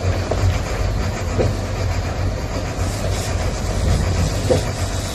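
Fishing boat's inboard engine running steadily under way, a constant low drone heard from inside the wheelhouse, with a few faint short squeaks.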